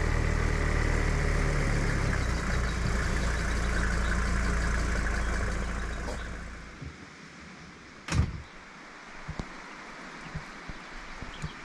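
Mercedes G 250 GD Wolf's five-cylinder diesel idling, then switched off about six seconds in, running down over a second. About two seconds later comes a single sharp knock, then a few faint clicks.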